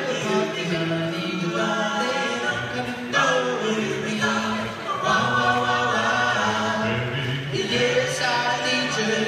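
Doo-wop vocal group singing a cappella in close harmony, several voices holding chords that change every second or two.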